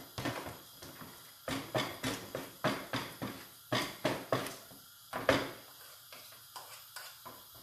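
A fork clinking and scraping in a mixing bowl while stirring zucchini fritter batter: irregular quick clicks and knocks, busiest for about the first five seconds and then thinning out.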